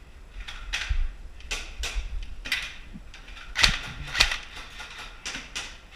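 A string of short, sharp clicks and crunches, roughly two a second and often in pairs. The loudest come a little past the middle.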